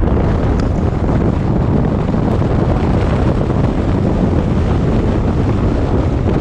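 Heavy wind buffeting an externally mounted action camera's microphone as a 4WD drives at road speed, with steady vehicle and road noise underneath.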